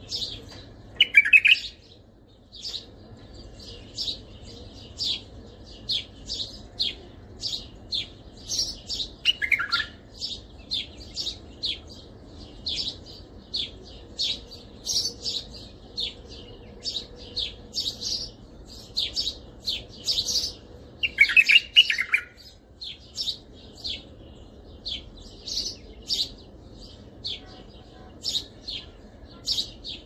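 White-eared bulbul song played as a tutor recording: three loud, bubbly warbled phrases about a second in, about ten seconds in and about twenty-one seconds in, over a steady series of short high chirps about twice a second.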